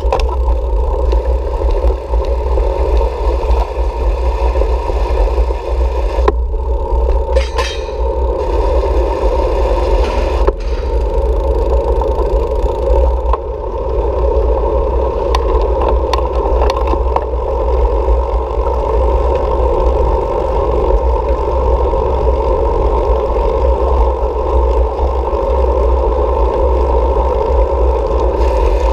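Steady riding noise from a moving bicycle: a loud rumble of wind on the microphone and a constant hum, with a few sharp clicks.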